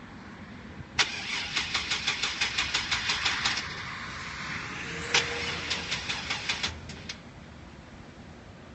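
GMC Safari van's starter clicking rapidly as the key is turned, about six clicks a second, in two tries, without the engine cranking over. This kind of clicking no-start is put down to a weak battery or a bad starter, and the owner is told it is probably the starter.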